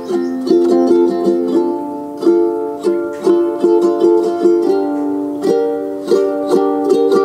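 Background music: a bright tune of quick plucked-string notes.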